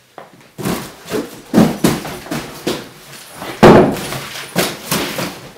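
A run of irregular thumps and knocks, about ten in all, the loudest about three and a half seconds in.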